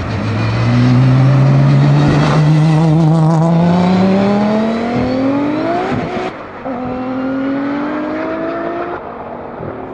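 A modified Audi S4 B5 with an RS4 twin-turbo V6 and a Bugatti Chiron accelerating flat out from a rolling drag-race start. The engine note rises steadily for about six seconds, breaks at an upshift, then climbs again as the cars pull away into the distance.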